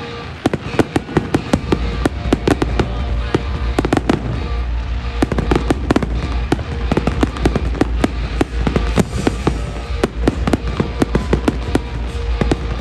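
Fireworks going off in rapid succession: dense crackling and popping bursts over a continuous deep rumble of booms. Music plays underneath.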